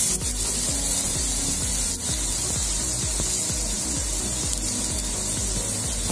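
Chicken breast sizzling steadily in a hot ridged grill pan, an even frying hiss.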